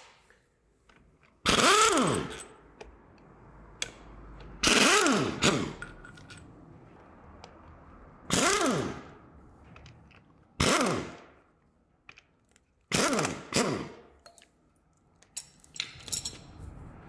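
Pneumatic impact wrench run in six short bursts, its motor pitch sweeping up and down each time, undoing bolts on the front of an engine; the last two bursts come close together. Faint clicks and knocks of tools between the bursts.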